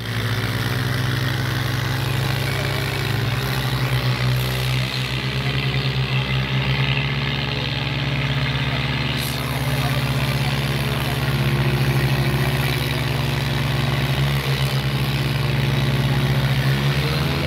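Diesel tractor engines running hard under full load as two tractors pull against each other in a tug-of-war, with a steady low drone that shifts in pitch a few times as they strain.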